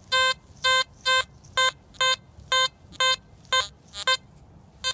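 XP Deus metal detector giving about ten short beeps of the same tone, roughly two a second, as the coil is swept back and forth over a target. The target reads low, in the 30s to 40s, and the hunter calls it a dud.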